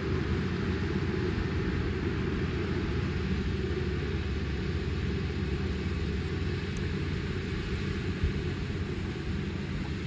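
Kubota ER470 combine harvester running steadily as it cuts rice, heard as a low, even rumble.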